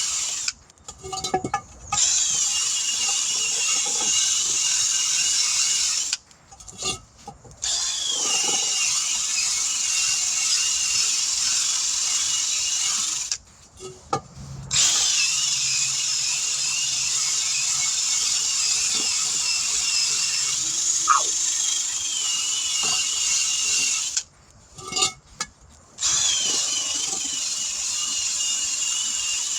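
Hand-held power tool running with a steady high whine, in runs of several seconds, stopping briefly four times.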